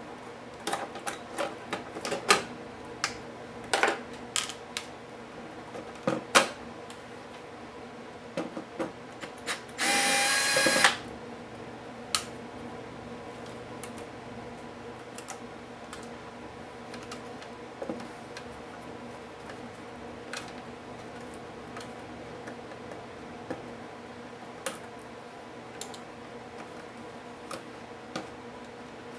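Scattered clicks and taps of small tools and plastic parts during laptop disassembly, busiest in the first few seconds, with one short whir of a small electric screwdriver about ten seconds in. A steady low hum runs underneath.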